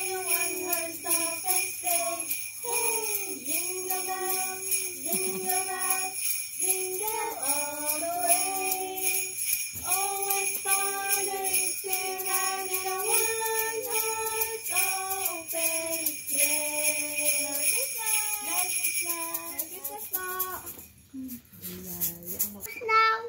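Carolers singing a Christmas carol to a handheld jingle rattle shaken in a steady rhythm. The song and jingling stop about 21 seconds in, and a brief loud voice follows near the end.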